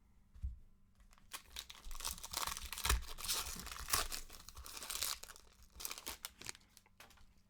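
A trading-card pack's plastic wrapper being torn open and crinkled, a crackly tearing and rustling that runs for several seconds after a soft thump.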